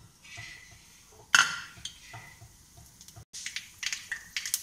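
Mustard seeds, fenugreek and cinnamon dropped into hot oil in an aluminium kadai: a faint sizzle and one sharp knock about a second in. From about three seconds in, a quick run of sharp pops as the mustard seeds splutter in the oil, a sign the tempering oil is hot enough.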